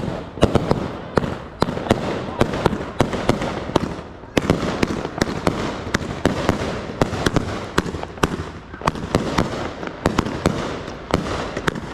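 Fireworks going off in rapid, irregular succession: many sharp bangs and pops, several a second, with a brief break about four seconds in.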